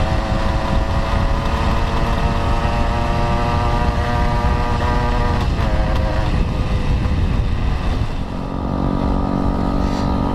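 An old underbone motorcycle's engine running at a steady cruising pitch, heard through heavy wind rush on the microphone. About eight seconds in the revs drop as the throttle is eased off.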